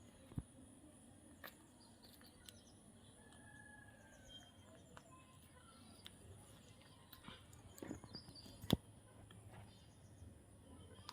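Faint parrot chirps, short and spaced apart, over scattered small clicks and taps, with one louder sharp click late on.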